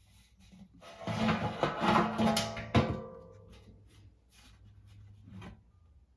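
Blower wheel in a sheet-metal blower housing spun by hand on its newly fitted X13 ECM motor: a ringing metallic whir that builds for about two seconds, with a sharp knock near the middle, then coasts down and fades.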